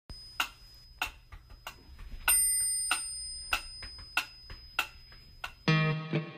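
Wind-up pyramid metronome ticking steadily, a little under two ticks a second, with a bell-like ring about two seconds in. Near the end a sustained musical chord comes in.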